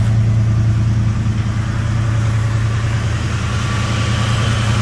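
A 1972 Ford F100's 360 V8 engine idling steadily and evenly, running smoothly.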